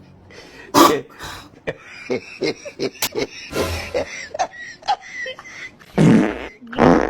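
A man coughing and clearing his throat: a loud harsh cough about a second in, smaller splutters and throat noises after it, and two more loud coughs near the end.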